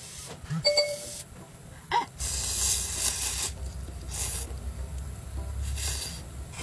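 Slurping instant ramen noodles with chopsticks: about four hissy slurps, the longest a second or so long, about two seconds in. A low steady hum runs beneath from about two seconds in.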